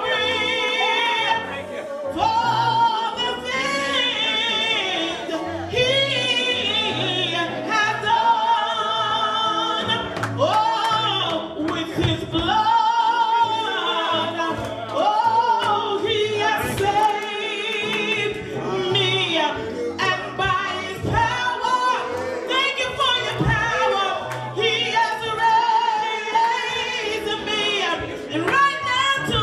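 Gospel music: a singing voice with heavy vibrato over an accompaniment with a steady bass line.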